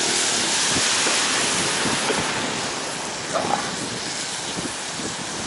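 Steady rushing hiss of wind on the microphone and bicycle tyres on wet asphalt during a ride, with a few small knocks from bumps in the road surface.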